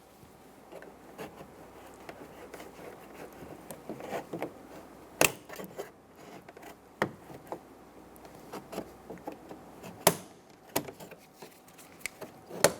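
Plastic interior door handle bezel being pried with a plastic trim tool while its retaining clips are pushed down: plastic rubbing and scraping, with scattered sharp clicks, the loudest about 5 and 10 seconds in, as the clips are worked loose.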